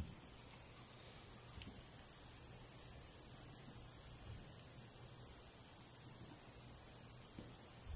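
Steady high-pitched electrical whine over a low hum; the highest whine cuts out about seven seconds in.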